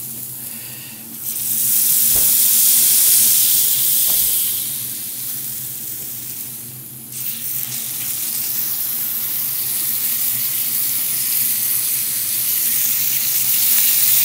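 Steaks searing in very hot stainless steel frying pans preheated past 220 °C: loud sizzling that surges about a second in, eases off, then surges again about seven seconds in as the second pan gets going.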